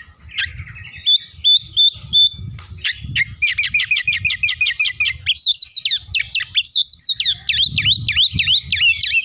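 Oriental magpie-robin (kacer) singing loudly in its cage, running through varied phrases. First come four repeated stepped notes, then about two seconds of fast trilling, then a run of loud down-slurred whistles about three a second to the end.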